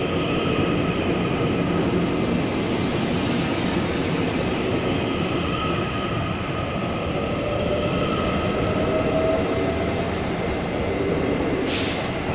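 TEMU2000 Puyuma tilting electric multiple unit pulling away and running past, with a steady rumble of wheels on rail and whining tones. A faint whine rises in pitch about seven seconds in as the train gathers speed. A short sharp hiss comes near the end.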